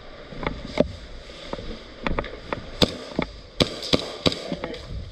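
Airsoft guns firing indoors: about a dozen sharp single cracks at irregular intervals, some close together, among the hard walls of the field.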